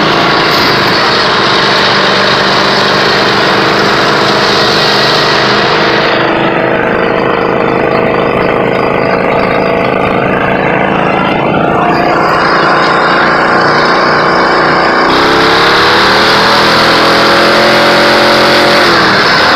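Riding lawn mower engine running steadily under way, heard from close by on the machine. About fifteen seconds in, the engine note rises, and it dips again near the end.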